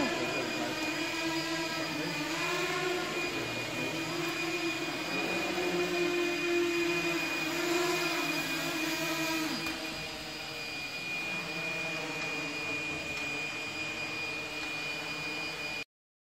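Electric motors and propellers of small radio-controlled aircraft whining in flight, the pitch rising and falling as the throttle changes. The sound cuts off suddenly near the end.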